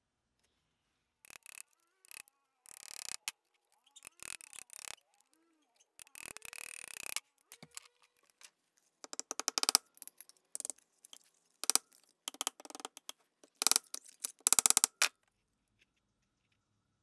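Pressure washer spraying motor parts in repeated short bursts of hissing spray that start and stop, louder in the second half.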